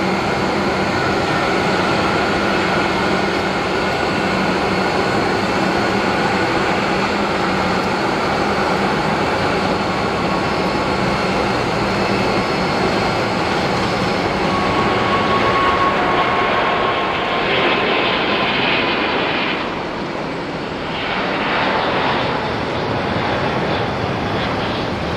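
Airbus A380 jet engines at takeoff power: a loud, steady jet noise with steady whining tones running through it as the airliner rolls and lifts off. The loudness dips briefly about twenty seconds in.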